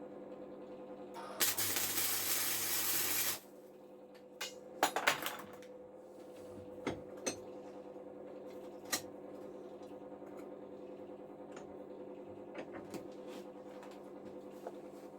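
Light metallic clicks and taps of tools or metal parts being handled, over a steady low hum. A hissing noise lasts about two seconds near the start.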